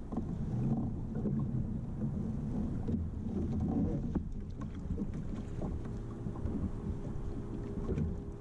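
Wind rumbling on the microphone and water moving against a fishing kayak, with a few faint clicks.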